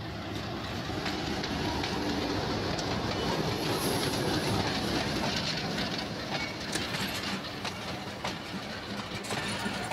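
Passenger train pulled by an HBU-20 diesel locomotive arriving past the listener. The engine and wheel noise are loudest as the locomotive goes by about four seconds in, then the coaches follow, clicking over the rail joints.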